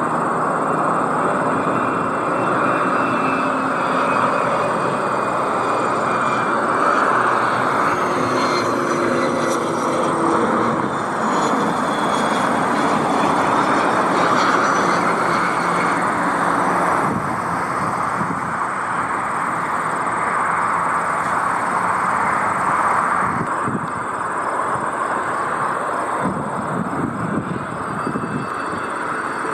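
Jet airliner engines running as the aircraft passes: a steady rushing noise with faint whining tones that slowly slide in pitch.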